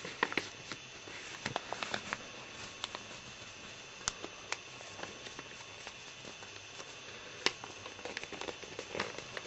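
A sheet of paper being folded and creased by hand: irregular soft crackles and sharp little clicks of the paper.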